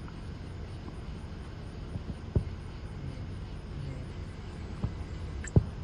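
Fireworks going off: two sharp bangs, about two and a half seconds in and near the end, with a few fainter pops, over a steady low rumble.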